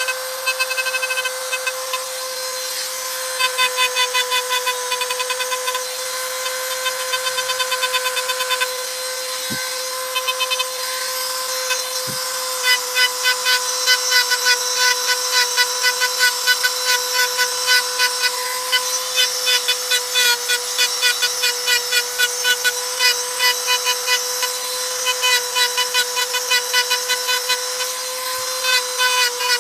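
Handheld high-speed rotary tool running with a steady high whine while its small bit grinds engraved lines into a stone slab. The bit's contact with the stone adds a gritty chatter that comes in short strokes, about three a second, busier from about a third of the way in.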